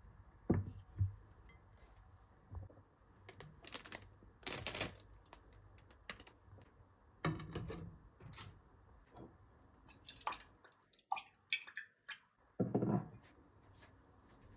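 Scattered small knocks, clicks and rustles of objects being handled, with a louder rustling noise about 5 s in and another near the end.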